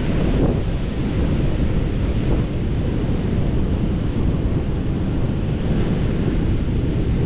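Heavy wind buffeting the microphone: a steady low rumble.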